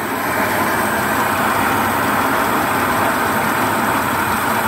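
1924 Rolls-Royce straight-six engine ticking away steadily just after starting, running with its fuel tap left off.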